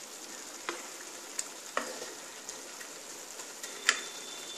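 Thick green moong dal sizzling steadily in a non-stick kadai while a wooden spatula stirs it, with a few short knocks of the spatula against the pan, the loudest near the end.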